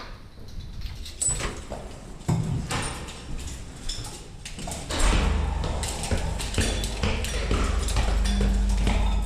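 Scattered knocks and clicks of handled gear, joined about halfway by a steady low rumble of gusty wind on the microphone.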